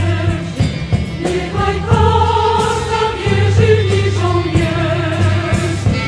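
Choral music: voices holding long notes over a low bass line, the chords changing every second or so, with no words heard.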